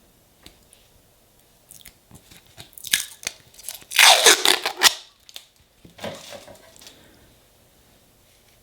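Protective plastic film being peeled off a metal nail stamping plate, crinkling and crackling in several uneven bursts, loudest about four seconds in.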